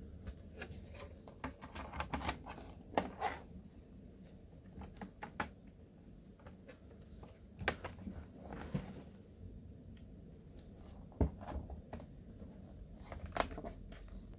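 Irregular clicks and light knocks from handling a plastic laptop case during reassembly, with a few sharper snaps spread through.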